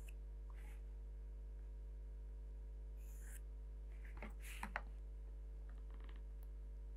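Steady low electrical hum with a few faint pencil scrapes and light taps of a set square and ruler on drawing paper, the ticks coming between about four and five seconds in.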